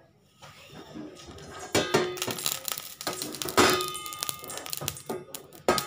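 Stainless steel frying pan clanking against the gas burner's grate as it is lifted and tilted to spread the oil, several metallic knocks that ring on briefly. The loudest come a little under two seconds in, about three and a half seconds in, and near the end.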